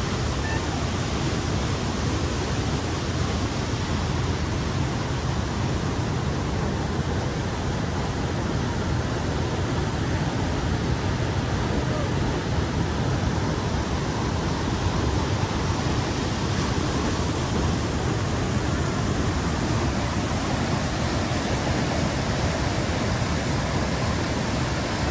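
Niagara Falls water crashing down close by: a loud, steady rushing of falling water that does not let up.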